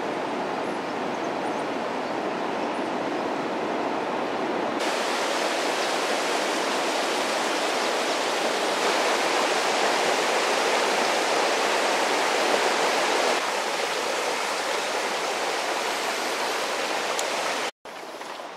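Steady rushing water: surf breaking along a coast at first, then from about five seconds in a shallow rocky river running over stones, a little louder. It cuts off abruptly near the end.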